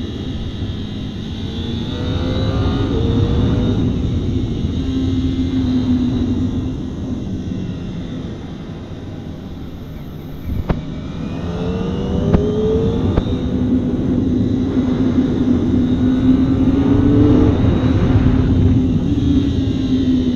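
Kawasaki ZX-25R's 250 cc inline-four engine running on a ride. The engine note sinks about halfway through as the bike slows for a bend, then climbs again with short rising revs as it speeds back up.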